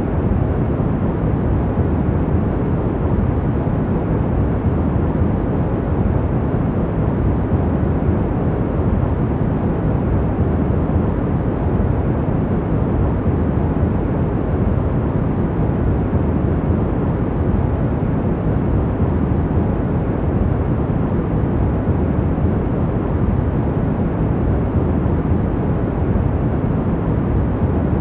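Steady noise for sleep, a deep even rumble weighted to the low end, without any change, tone or break.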